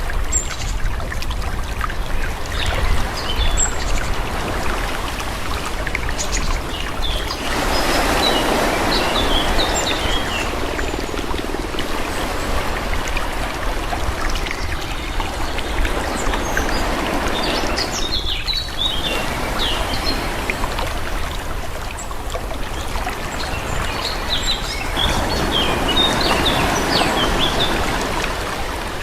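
Calm sea waves washing in over a shore, swelling louder twice, about eight seconds in and again near the end. Short high chirps are scattered over the wash.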